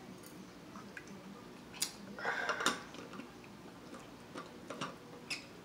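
Light clicks and taps from eating and from handling an insulated water bottle and its screw cap, with a short louder rustling noise about two seconds in.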